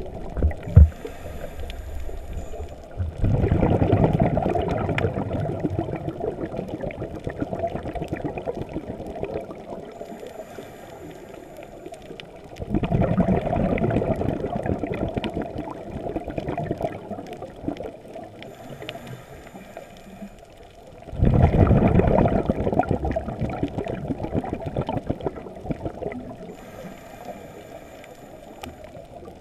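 A scuba diver breathing through a regulator underwater. Each breath is a faint hiss of inhalation followed by a loud rush of exhaled bubbles that fades over a few seconds. The cycle comes about every nine seconds, three times.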